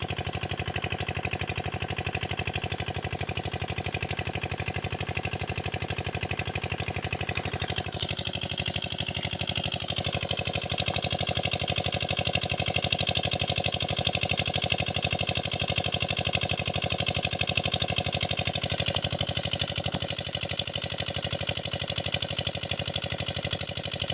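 Small engine running with a fast, even chug, getting louder about eight seconds in and changing pitch slightly again near the end.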